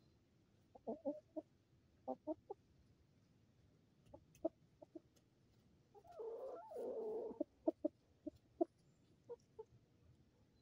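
Chickens clucking in short, scattered calls, with one longer, louder call about six seconds in.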